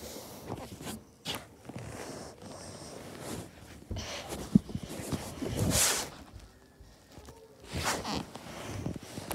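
Rustling and shuffling handling noises from movement in the dark, in uneven bursts, with one sharp click about four and a half seconds in.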